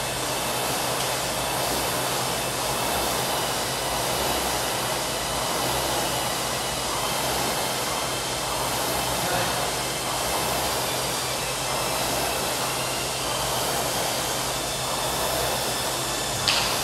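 Rowing machine flywheel whooshing steadily under continuous rowing, swelling gently with each stroke. There is a single sharp clink near the end.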